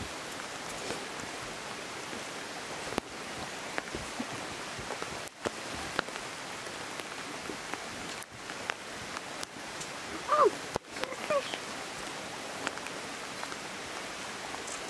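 Shallow river running steadily over a gravel bed, with scattered light clicks and splashes. About ten seconds in comes a louder burst with a short, bending call.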